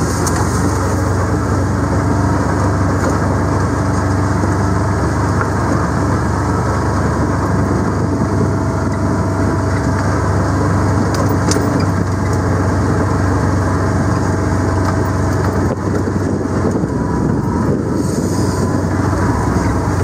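Engine of the vehicle the filmer rides in, running steadily at low speed along a dirt track.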